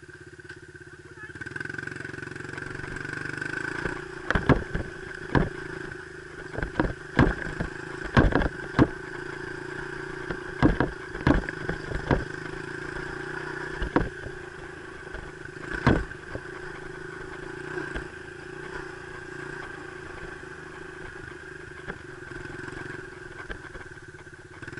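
Dirt bike engine running steadily at low revs, with a run of sharp knocks and clatter over its middle stretch.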